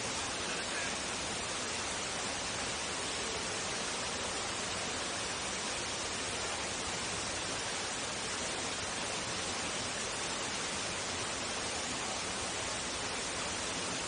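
Steady rushing of a waterfall, an even wash of white noise with no break or change.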